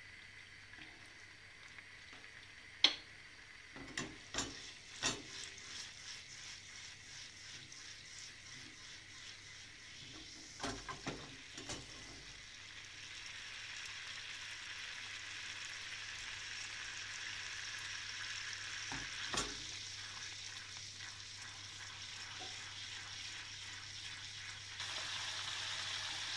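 Butter, oil and tomato paste sizzling in a frying pan, the hiss growing louder from about halfway and again near the end as the fat heats up, with scattered knocks and clicks of a spoon against the pan.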